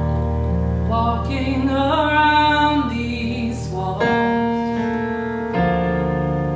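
Worship song: sustained keyboard chords with a singer's voice gliding through a phrase about one to three seconds in.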